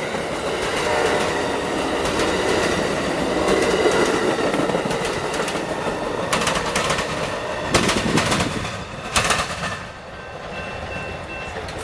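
Amtrak Silver Star passenger train rolling past at close range, a steady rumble and rattle of wheels on rail. A few sharp clacks come from the wheels over the track near the middle as the last car goes by, then the sound drops away.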